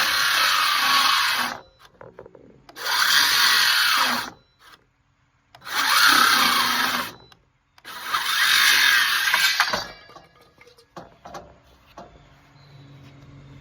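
Craftsman CMCS500 cordless circular saw cutting into a wooden four-by-four in four short bursts, each stopping after a second or two, then falling quiet except for light clicks. The saw keeps stopping as its batteries run flat.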